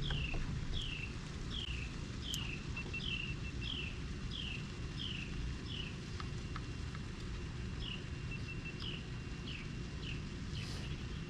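A bird calling a short, high, falling note over and over, about every half second, with a brief pause a little past halfway, over a steady low rumble of outdoor noise.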